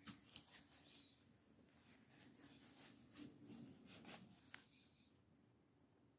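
Faint rustling, rubbing and a few light taps of sewn cloth being handled and turned right side out.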